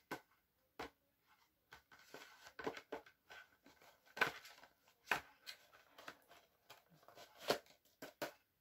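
Faint, irregular clicks and rustles of a plastic DVD case and its discs being handled, with a few sharper clicks about four, five and seven and a half seconds in.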